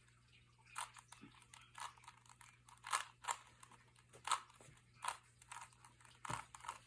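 Rubik's Cube being turned by hand: a quick, irregular string of plastic clicks and clacks as its layers are twisted, with short pauses between turns.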